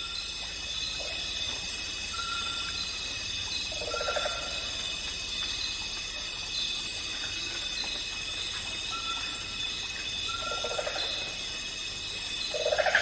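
Outdoor animal ambience: short repeated bird chirps over a steady, high insect-like drone, with a few louder calls near the middle and end.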